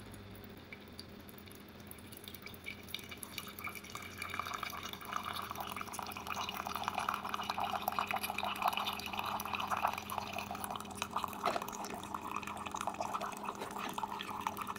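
Famiworths single-serve coffee maker brewing: a steady low hum from the machine while coffee trickles and drips into the cup. The trickle builds up over the first few seconds.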